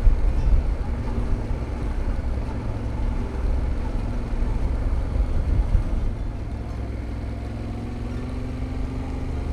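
Motorcycle engine running while riding, under a heavy low rumble of wind on the microphone. The engine note rises near the end as the bike speeds up.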